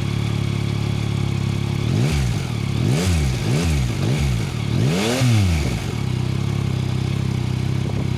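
Yamaha Tracer 9's 890 cc inline-three engine idling just after start-up, blipped five times in quick succession from about two seconds in, the last rev the highest, then settling back to a steady idle.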